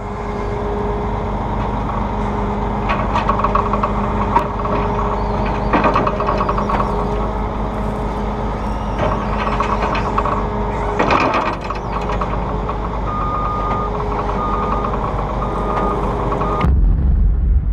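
Combine harvester running steadily, its engine and machinery giving a constant hum with scattered rattles and clicks. Near the end a high beeping alarm sounds several times, then the sound cuts abruptly to a deep rumble.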